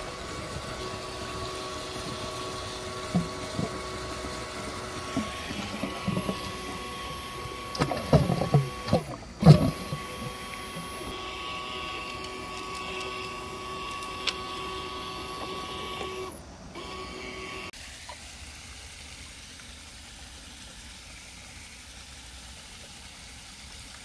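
A 12-volt 1100 GPH bilge pump driving a homemade venturi dredge nozzle runs with a steady hum over gushing water, with a few loud knocks around eight to ten seconds in. The hum cuts off about three-quarters of the way through, leaving a quieter wash of water.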